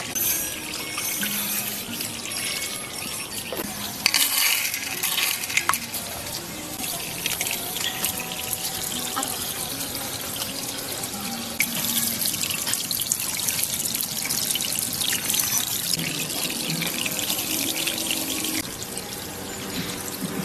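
Water running and splashing steadily into a small concrete garden pond, with a few louder splashes about four seconds in.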